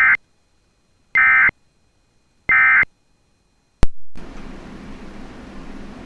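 Emergency Alert System end-of-message code: short, loud bursts of screechy digital data tone sent three times about 1.3 s apart, marking the end of the flash flood warning. Just under four seconds in, a sharp click, then a steady hiss with a low hum.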